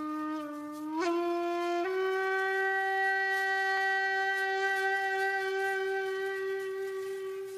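A horn-like wind instrument sounding one long held note that steps up in pitch twice in the first two seconds, then holds steady and tapers slightly near the end.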